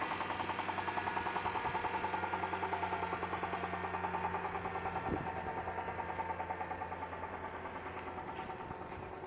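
Engine running with a steady, even knock of about eight beats a second over its hum, which the owner asks about as possible rod knock alongside oil pressure that comes and goes. One sharp click about five seconds in, and the sound fades toward the end.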